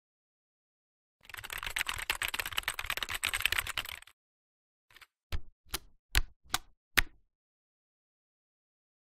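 Computer keyboard typing: a fast run of keystrokes for about three seconds, then about five single, harder keystrokes a little under half a second apart.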